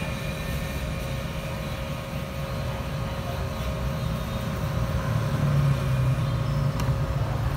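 Grundfos pump set on a Mitsubishi F700 inverter running down: with the discharge valve shut, the PID loop cuts the motor speed toward zero. A steady hum with a constant tone fades near the end, over a low traffic-like rumble.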